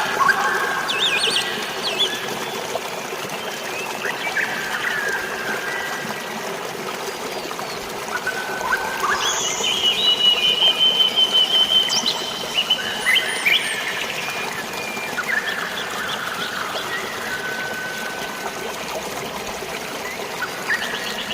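Steady flowing water and light rain, with several birds calling and chirping over it; about ten seconds in one bird gives a rapid trill lasting around two seconds.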